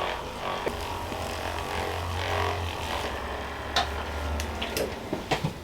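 A small electric motor runs with a low, steady hum for about four seconds. It shifts slightly in pitch about halfway through, then stops, and a few light clicks follow.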